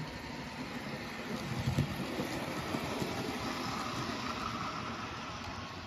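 Model train running past on layout track: a steady rumble with dense clicking of wheels and motor, which swells about a second and a half in and eases off near the end.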